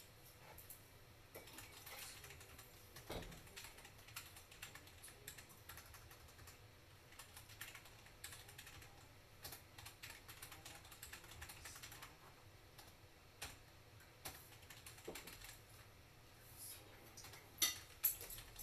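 Faint, irregular taps and clicks on a touchscreen device as a drawing is made on it, with a couple of louder clicks near the end.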